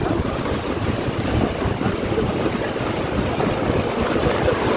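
Heavy rain and strong wind of a storm as a steady rushing noise, with gusts buffeting the microphone.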